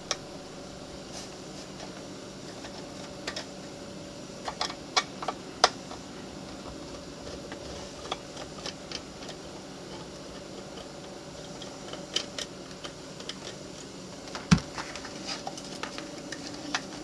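A small screwdriver backs screws out of an external hard drive's metal enclosure, making faint scattered clicks and ticks, with a sharper knock near the end as the case is handled.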